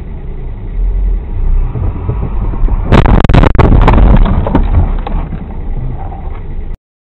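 Car crash: steady vehicle rumble, then about three seconds in a sudden cluster of loud bangs and knocks lasting a second or so, the noise of the collision. The sound stays raised for a few seconds and then cuts off abruptly near the end.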